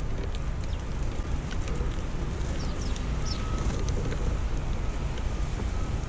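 Wind buffeting an outdoor action camera's microphone, a steady low rumble. A few faint high chirps from the house sparrows at the seed feeder come a little past the middle.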